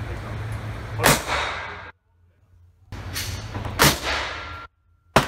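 Handgun shots echoing in an indoor shooting range: a semi-automatic pistol and a stainless revolver. One sharp shot comes about a second in, a fainter one a little after three seconds, a loud one near four seconds and another at the very end, each with a ringing echo tail. The sound cuts in and out abruptly between edited takes.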